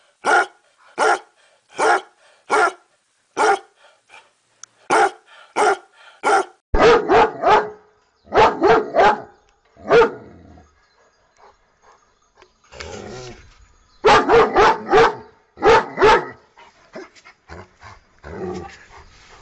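A basset hound barking, a steady run of single barks, then, about six seconds in, a German shepherd barking in bursts of three or four quick barks.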